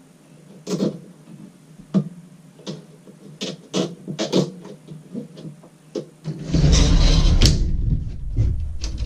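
Sharp plastic clicks and taps as the sliding closet door's plastic latch is worked by hand with a zip tie. About six seconds in comes a louder rumbling scrape lasting over a second.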